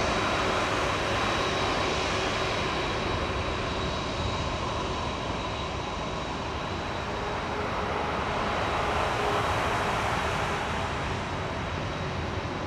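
Boeing 747-400F freighter's four jet engines running at low power as the aircraft rolls along the runway after landing: a steady rush of noise with a high whine held at one pitch.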